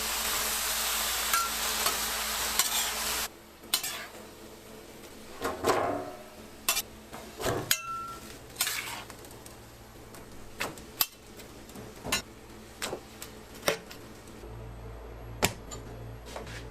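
Food sizzling on a hot griddle, cutting off abruptly about three seconds in, then scattered clinks and knocks of metal cooking utensils.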